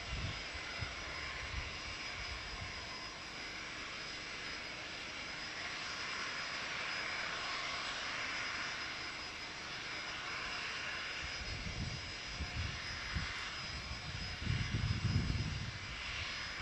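Boeing 767-200ER's twin jet engines running at takeoff thrust through the takeoff roll and lift-off, a steady jet noise heard from behind as the airliner moves away, with bursts of low rumble in the last few seconds.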